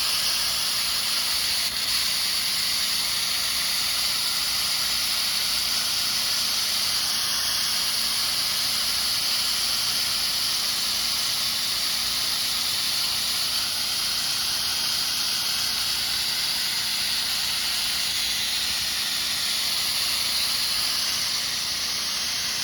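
Pressure washer spraying a 1% soft-wash mix through an XJet nozzle opened all the way to a shooter-tip jet: a steady, high hiss of the long-range stream.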